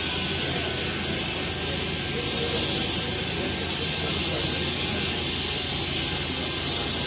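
Steady workshop background noise: an even hiss with a low hum beneath it, unchanging throughout.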